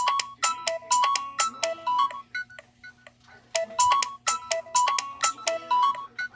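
Alcatel OneTouch Cinch (1018B) feature phone playing a built-in ringtone through its small speaker: a quick melody of short beeping notes, played once, then repeated after a brief pause about three seconds in.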